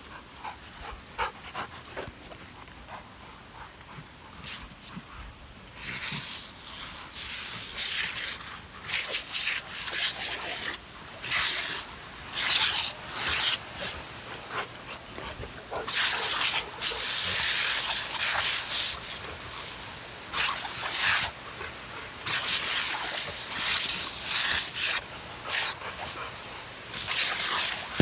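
Spraying and splashing water in irregular hissing bursts, sparse at first, then louder and more frequent from about six seconds in, as dogs play in it.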